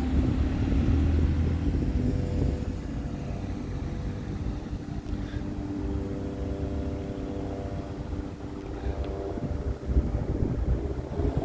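Diesel bus engine running close by: a heavy low rumble for the first couple of seconds that settles into a steady engine hum, with a short thump near the end.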